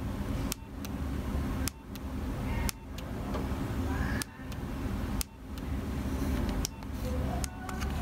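Sharp clicks roughly once a second as the Nokia 3300's navigation key is pressed to scroll through menu items, over a steady low rumble in the background.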